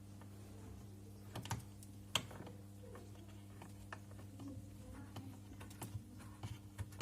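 Faint clicks and taps of a small screw-in bulb being handled and threaded into a fridge's plastic lamp socket, with a sharper click about two seconds in and a run of small ticks near the end, over a steady low hum.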